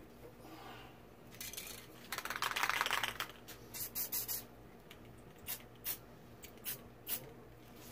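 Aerosol spray paint can sprayed in bursts: one long hiss about two seconds in, then a string of short quick puffs.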